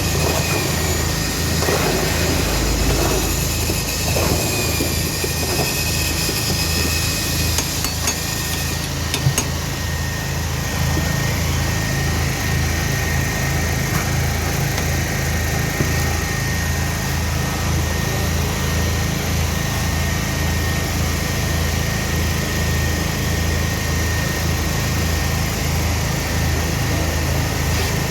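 An engine running steadily with a low pulsing drone, and a high whine over it for the first several seconds.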